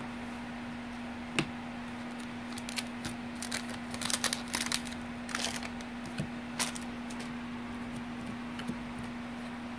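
Glossy Stadium Club baseball cards being flipped through by hand: a scattered series of short clicks and slides as the cards are pushed past one another, busiest about halfway through, over a steady background hum.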